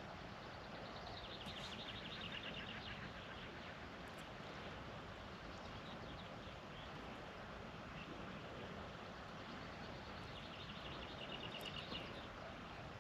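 Faint, steady outdoor background hiss. A small bird gives a rapid trill of repeated chirps about a second in, and again near the end.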